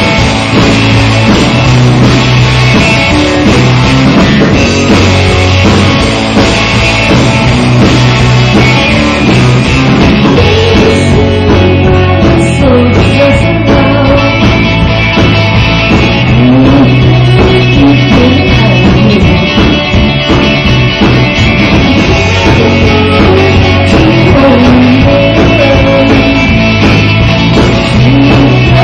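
Rock song with electric guitar, drums and a singing voice.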